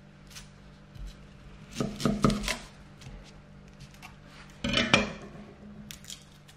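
Wide-bladed chef's knife chopping through a shallot onto an end-grain wooden cutting board: a few sharp knocks about two seconds in and another cluster near five seconds, as the ends of the shallot are cut off.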